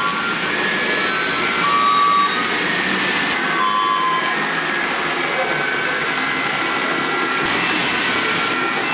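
Motorised toy dogs whirring steadily as they travel down a wooden floor track, over a continuous hubbub of people talking.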